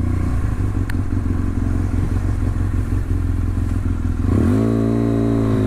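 Motorcycle engine running under way with wind noise, the BMW F800 ST's parallel twin; about four seconds in, the engine note climbs and then holds steady as the bike accelerates.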